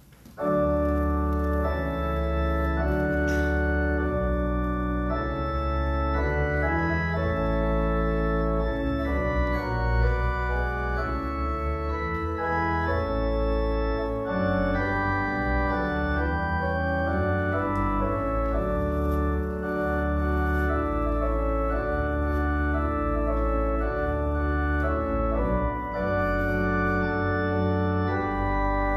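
Church organ playing full, sustained chords over a low pedal bass line, starting abruptly about half a second in.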